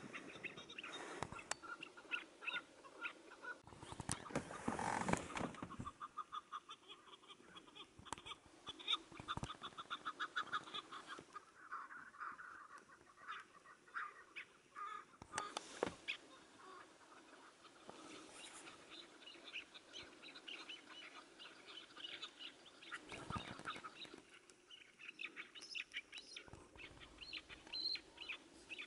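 Chukar partridges calling in fast runs of repeated clucking notes, several birds overlapping. There is a short burst of noise about four to five seconds in.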